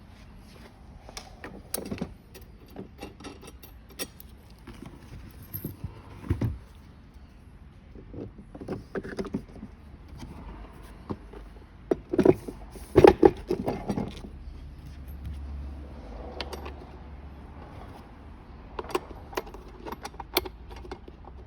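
Small metal parts clinking and plastic knocking as washers and a rear wheel are handled and fitted onto the axle of a kids' ride-on car, with a cluster of louder knocks a little past the middle.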